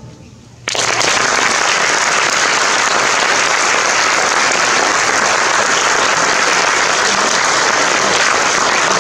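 The last chord of a concert band dies away, then an audience breaks into applause suddenly, a little under a second in, and keeps clapping steadily.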